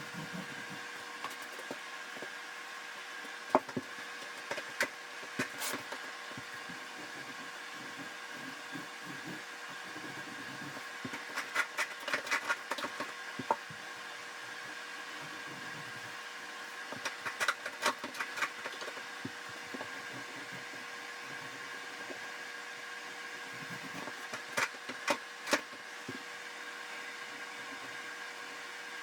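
A steady mechanical hum, broken four times by short clusters of clicks and knocks.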